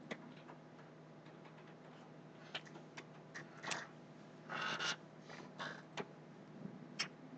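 Faint, scattered clicks of a computer mouse, about half a dozen spread over several seconds, with a brief soft rustle a little past the middle.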